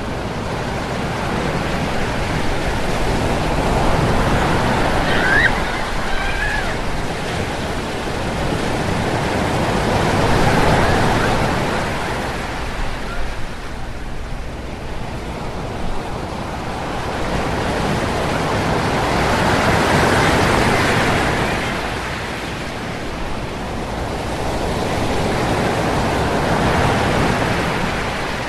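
Ocean surf on a beach: waves break and wash in, the rushing noise swelling and easing in slow surges several seconds apart.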